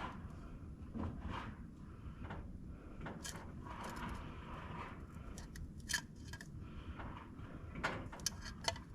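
Faint rustling and a few light clicks and taps of tools and parts being handled at a workbench.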